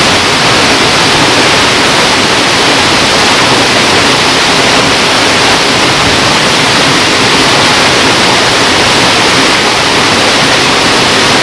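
Loud, steady rush of a small waterfall pouring into a stream pool.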